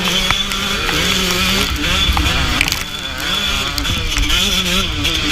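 Suzuki RM125 two-stroke dirt bike engine racing, its pitch rising and falling again and again as it revs up and shifts, with other dirt bikes running close by.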